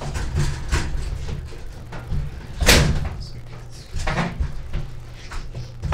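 Knocks and bumps of things being handled around a home kitchen, with one sharp bang about two and a half seconds in, over a steady low hum.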